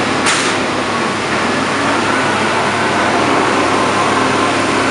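Steady din of diesel construction machinery running, with a short noisy burst about a third of a second in.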